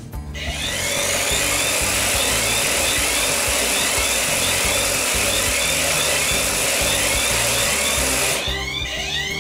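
Flying alarm clock's motor spinning up its propeller rotor with a loud, steady whirring, electronic alarm chirps repeating faintly underneath. About eight and a half seconds in, the whirring cuts off as the rotor launches, leaving the repeating rising chirps of the alarm clear.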